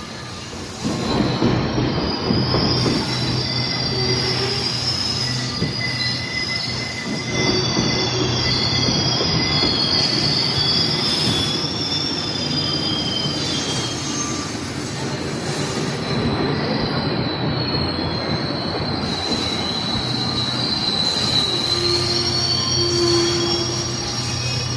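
Commuter train running on its rails with a steady rumble, its wheels squealing in high, wavering tones that come and go.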